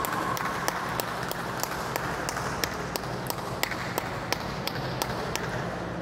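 Spectators clapping in a steady rhythm, about three claps a second, over a low hall murmur. A held shout trails off at the start.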